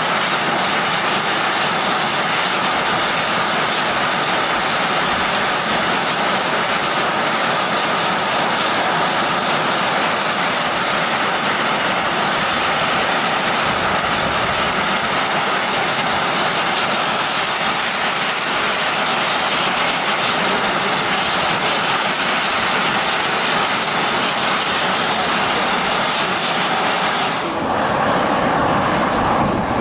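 Steam venting from a geothermal fumarole: a loud, steady hiss of escaping steam. Near the end the high hiss drops away, leaving a lower rushing noise.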